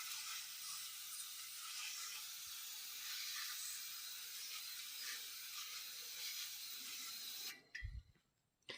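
Aerosol degreaser can spraying in one long continuous hiss that cuts off about seven and a half seconds in, followed by a brief low thump.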